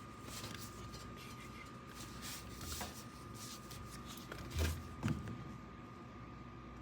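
Faint handling noises: scattered light clicks and two small thumps about four and a half and five seconds in, over a faint steady high whine.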